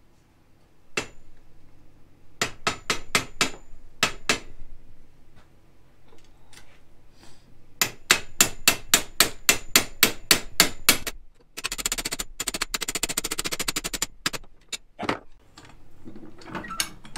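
Hammer striking steel parts of a Hi-Lift jack's lifting mechanism to seat a retaining pin against a spring-loaded pin. Sharp metal strikes come a few at a time at first, then in a fast run of about four a second, then as a quicker clatter before one last strike.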